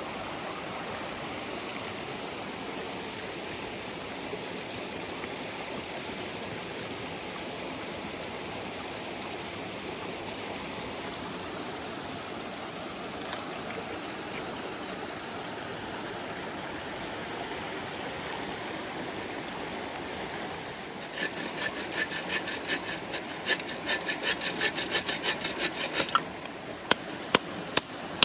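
Mountain stream running steadily. About three-quarters of the way in, a folding bow saw cuts a stick in quick back-and-forth strokes for about five seconds, then a few sharp knocks of wood being struck follow near the end.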